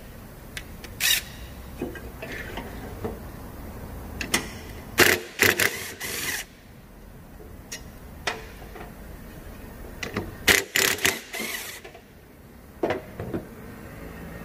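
Hand tools and small metal engine parts clicking and clattering during small-engine repair: scattered sharp knocks, with two busier spells of rattling about five and ten seconds in.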